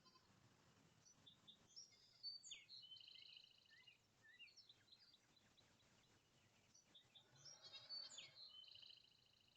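Faint songbird song: two phrases of quick whistled notes, each running into a rapid trill, a few seconds apart.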